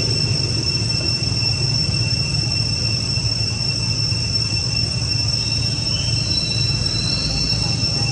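Steady high-pitched drone of forest insects, held on two even tones over a low steady rumble, with a few faint short calls near the end.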